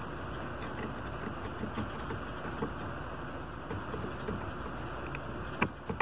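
Small scattered clicks and taps of tools being handled on a workbench, over a steady background hiss, with one sharper click near the end.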